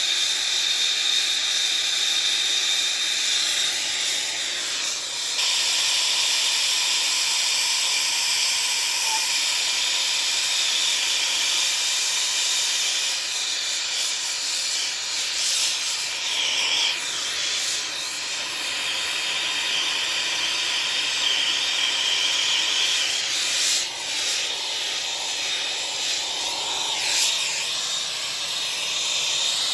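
Gas soldering torch flame hissing steadily while heating a 3-inch copper pipe joint, its level shifting a few times as the flame is worked around the fitting.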